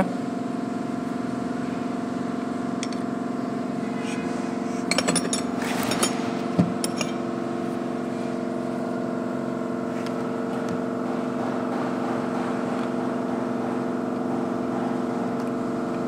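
A machine running steadily with an even hum of several fixed tones. There are a few short metallic clicks about five to seven seconds in, as steel brake shoe parts and the handbrake lever are handled.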